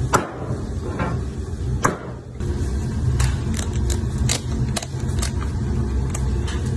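Kitchen scissors snipping and cracking through the shell of a cooked king crab leg: about ten sharp snips at uneven intervals, over a steady low rumble.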